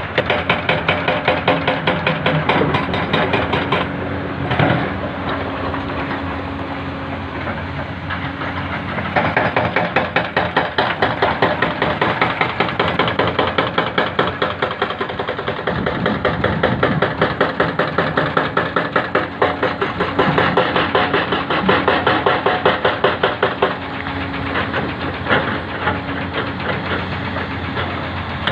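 Hidromek HMK 300 tracked excavator working in broken rock: its diesel engine runs under load with a rapid, even pulsing that comes and goes. In between there is a steadier engine hum.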